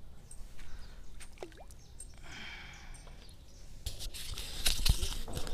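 Fingers handling a small action camera, rubbing and knocking against its housing: faint scattered clicks at first, then a run of louder knocks and scrapes from about four seconds in.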